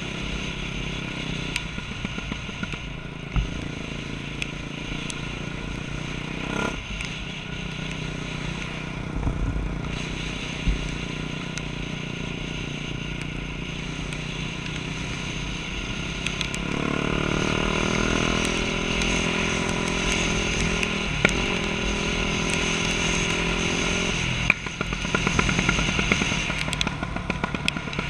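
Dirt bike engine running as it is ridden, picking up revs about two-thirds of the way through and holding a steady pitch for several seconds before changing again, with a few short knocks.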